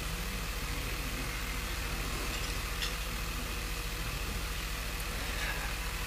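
Steady low electrical hum with a faint hiss over it, and one faint click about halfway through.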